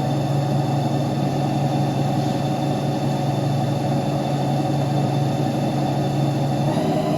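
CNC lathe running with a steady hum made of several tones. The hum shifts in pitch near the end.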